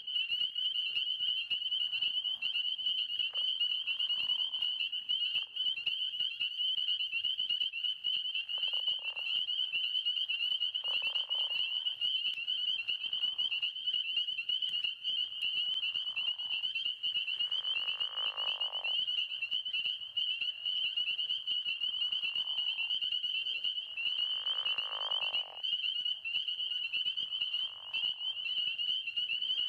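Frog chorus: a dense, steady high-pitched trilling from many frogs, with lower-pitched calls about a second long standing out of it every few seconds.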